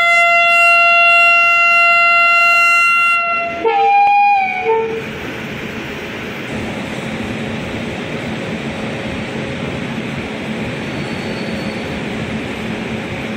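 WAP-7 electric locomotive's horn sounding one long steady blast that ends about three and a half seconds in with a short wavering note, the departure signal. Then the steady, quieter noise of the locomotive and train moving off.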